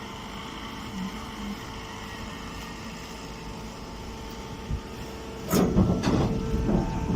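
Hay baler running with a steady mechanical hum. About five and a half seconds in, loud clattering and knocking suddenly starts and keeps going.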